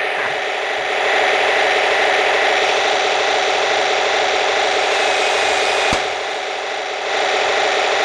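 Remote-control model tank running, a steady rattling mechanical drone. There is a sharp click about six seconds in, and the drone is quieter for about a second afterwards.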